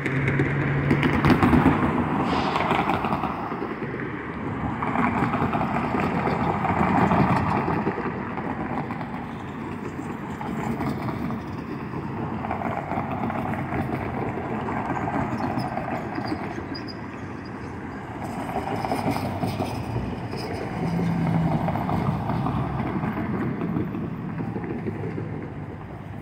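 Road traffic at a rail grade crossing: vehicles pass one after another in rising and falling swells over a low, steady rumble.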